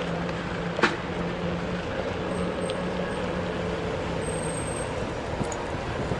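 City street traffic noise: a steady hum from a nearby vehicle engine that stops about four and a half seconds in, over a constant wash of road noise, with one sharp knock about a second in.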